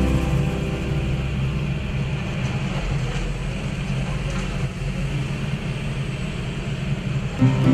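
Industrial shredder's toothed cutter rotors tearing up a crushed car body: a steady grinding and crunching of metal.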